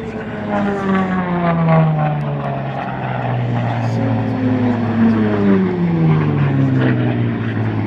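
Propeller-driven aircraft flying past, the engine note falling in pitch as each one goes by, twice in a row, over a steady low engine drone.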